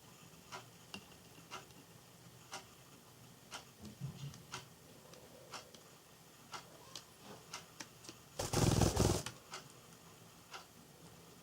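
A Java sparrow's beak pecking and snipping at pea sprouts: irregular sharp clicks, roughly one or two a second. About eight and a half seconds in comes a louder rustle lasting under a second.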